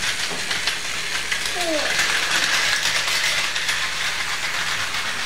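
Battery-powered Plarail toy shinkansen running on plastic track: a steady whirring motor with the wheels clicking and rattling over the track. A child's short voice is heard briefly a little over a second and a half in.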